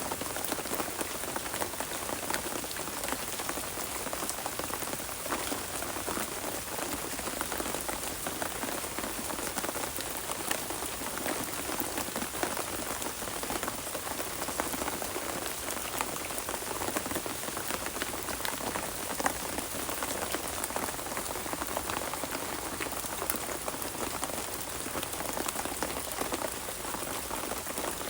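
Steady rain falling, a dense patter of individual drops striking surfaces.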